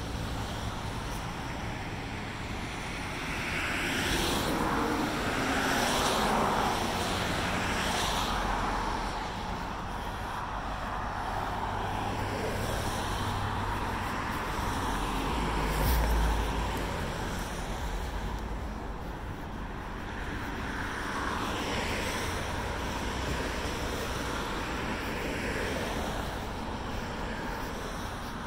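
Road traffic on a city boulevard: cars passing one after another, each swelling and fading, with a short low thump about sixteen seconds in.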